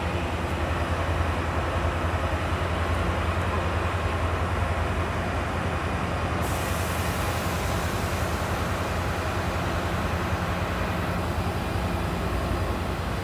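Steady low drone of an idling train at a station. A brighter hiss joins about six seconds in.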